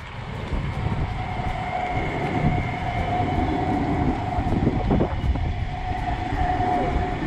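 GVB articulated tram rolling past close by on its rails, a steady rumble with a high whine held over it.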